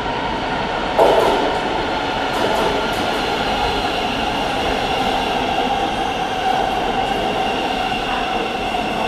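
Thameslink Class 700 electric multiple unit rolling into the platform and along it, a steady rumble with several whining tones from its traction equipment that sag slightly in pitch as it slows. A sudden loud burst comes about a second in.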